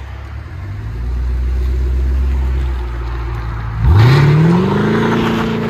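2014 Chevy Camaro SS 6.2 L V8 with an X-pipe, resonator delete and Flowmaster Flow FX mufflers, running at a low steady idle. About four seconds in, the throttle opens hard and the exhaust gets suddenly louder, revs climbing quickly as the car accelerates away.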